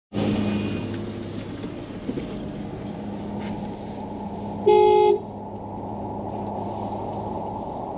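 A vehicle driving with a steady road-and-engine drone, and one short car horn honk of about half a second roughly five seconds in.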